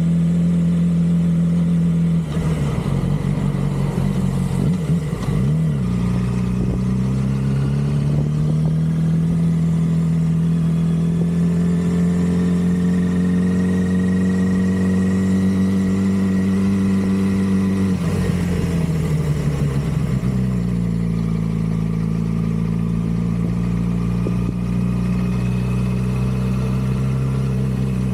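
2006 Yamaha R6 with its stock exhaust, the inline-four engine running steadily at mid revs. The pitch climbs slowly for several seconds in the middle and drops again, with short unsteady patches about two seconds in and near eighteen seconds.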